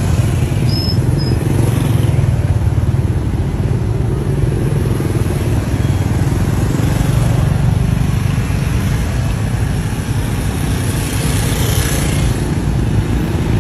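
Road traffic close by: motorbike engines passing at low speed amid other vehicles, a loud steady noise with no distinct revs.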